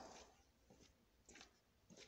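Near silence: quiet room tone with a few faint, short ticks about every half second.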